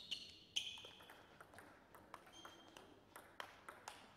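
Table tennis ball bouncing on a hard surface: three sharp pings with short ringing tails in the first second, followed by fainter scattered ticks.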